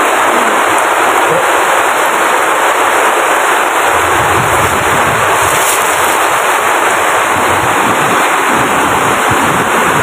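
Heavy rain falling, a loud steady hiss with a dense crackle. A low rumble joins about four seconds in.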